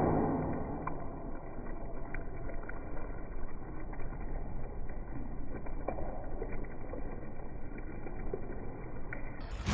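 A steady stream of milk pouring from a height into a wide steel pan of foaming milk, splashing continuously, sounding muffled.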